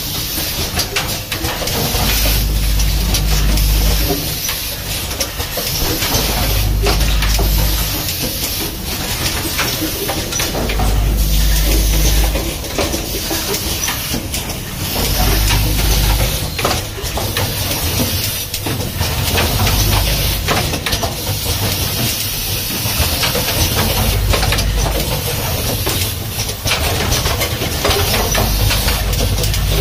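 Automatic rapid test kit assembly machine running: a steady pneumatic hiss with rapid mechanical clicking and clacking, and a low rumble that swells about every four seconds as the machine cycles.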